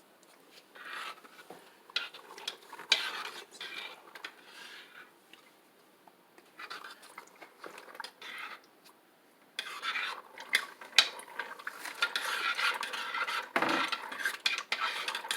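A spoon stirring and scraping against the inside of a crock pot, clinking and rasping in short scattered strokes at first, then continuously from about ten seconds in.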